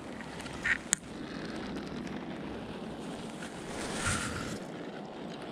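Close handling noise as a small pike is unhooked by hand: a couple of sharp clicks about a second in and a brushing rustle around four seconds, over a steady hiss.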